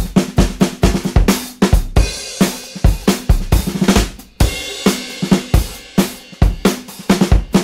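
Background music with a steady drum-kit beat: bass drum, snare and cymbals, several hits a second.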